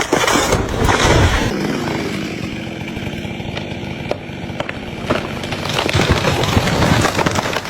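Chainsaw engine running, with a few sharp clicks or knocks over the second half.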